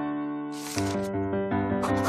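Background keyboard music with steady piano-like notes. A short papery swish sounds about half a second in as the notebook page turns, and pencil scratching on paper starts near the end.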